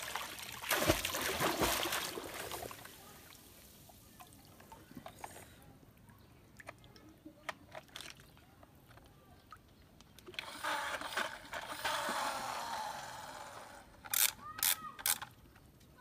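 Splash and water pouring off a plastic toy truck as it is pulled up out of a river, loudest in the first two seconds, then water trickling again about ten seconds in. A few sharp clicks near the end.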